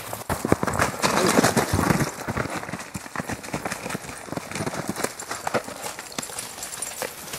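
Several large dogs running through snow, their paws thudding and crunching in quick, irregular beats. The footfalls are loudest in the first two seconds as the pack runs up close, then lighter.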